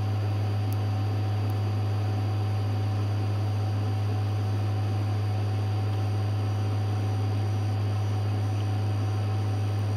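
Metcal HCT2-120 hot air rework station running, a steady low hum with a hiss of air from the hot air pencil as it reflows solder paste on surface-mount parts.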